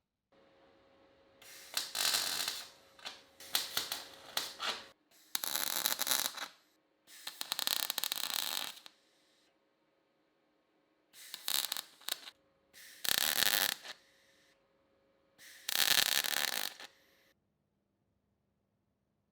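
MIG welder laying short stitch or tack welds on car body panel steel: about seven crackling bursts of one to two seconds each, with a faint steady hum in the pauses between them.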